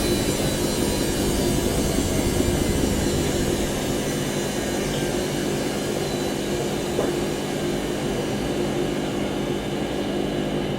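Washing machine on its spin cycle, the drum spinning at speed: a steady hum with several held tones over an even rushing noise.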